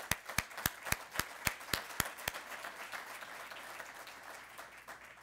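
Audience applauding. One person claps loudly close to the microphone, about four claps a second for the first two seconds, and the applause then fades away near the end.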